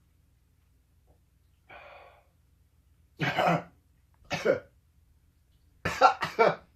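A man coughing about four times, a single cough, another, then two in quick succession near the end, with the harsh throat-clearing sound of someone whose throat is burning from a ghost pepper chip.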